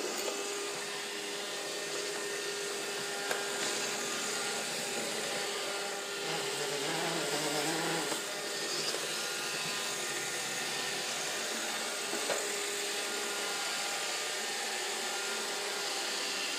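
Robot vacuum cleaner running: a steady motor whir with a high hiss and a few constant whining tones.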